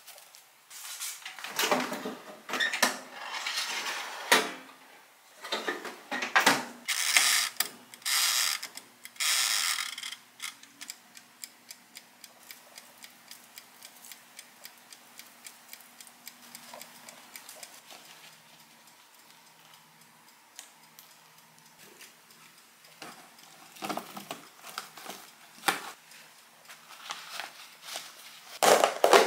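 Kitchen handling sounds: crisp rustling and crinkling in several bursts, as dried green onion and kitchen paper are handled. A soft, regular ticking of two to three a second runs through the middle. Near the end come clicks and a sharp snap as a plastic food-container lid is pressed on.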